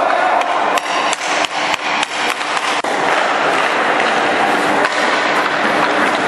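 A quick run of sharp clacks and knocks from hockey sticks and pucks on the ice, about a dozen in two and a half seconds, over a steady noisy rink background.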